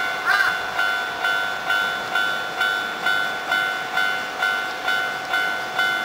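Japanese railway level-crossing warning bell ringing with an even electronic ding repeated just over twice a second, signalling that the crossing is still closed. A short wavering squeal overlaps it right at the start.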